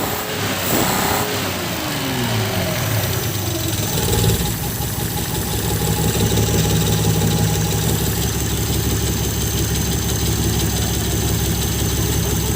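Car engine starting about four seconds in and settling into a steady idle, now that its faulty ignition coil, the cause of its hard starting, has been replaced.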